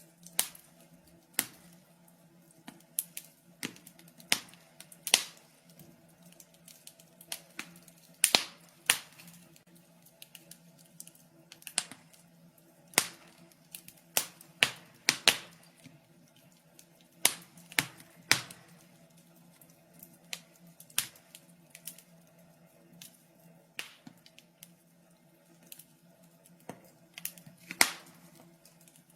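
Wood fire crackling in a fireplace: irregular sharp pops and snaps, one to three every couple of seconds, over a faint steady hum.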